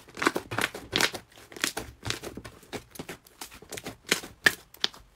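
Hands kneading and pressing a pale blue slime, giving a quick, irregular run of sticky crackles and pops as it squishes and pulls apart, with a couple of sharper snaps about four seconds in.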